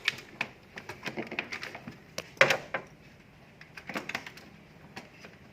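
Scattered clicks and knocks of hands working on a refrigerator's defrost parts and wiring, the loudest about two and a half seconds in.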